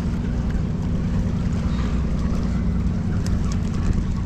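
Steady low hum of an idling boat engine, with wind noise on the microphone and a few light ticks about three seconds in.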